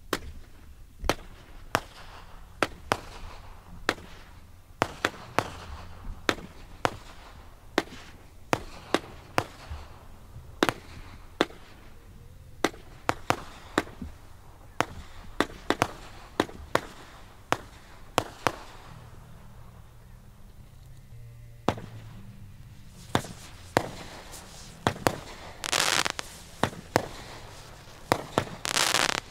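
Aerial fireworks display: shells bursting one after another in a rapid string of sharp booms, often more than one a second, with two longer, louder bursts of about a second each near the end.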